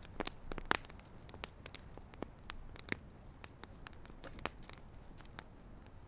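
Campfire crackling: irregular sharp pops and snaps from burning wood over a low hiss.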